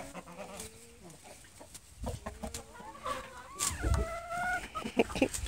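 A flock of American Buckeye hens clucking, with short scattered calls and one longer drawn-out call a little past the middle.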